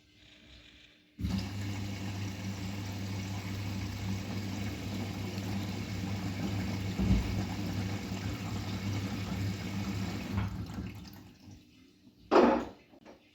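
Bosch WGA252Z0TR washing machine drawing in water: a sudden rush of inflowing water with a steady low hum, starting about a second in and fading out some ten seconds later, followed by a brief loud knock near the end.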